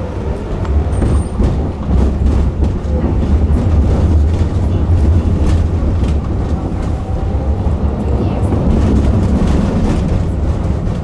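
Tram running on its rails, heard from inside the passenger car: a steady low rumble of wheels on track, with scattered clicks and rattles. It grows louder over the first few seconds, then holds steady.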